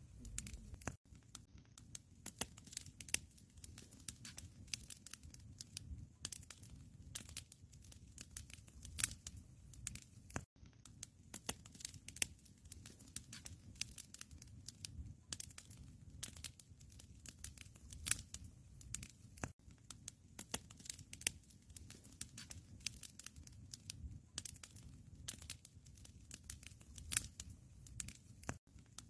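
Faint crackling of a wood fire in a fireplace: irregular small pops and snaps over a low rumble.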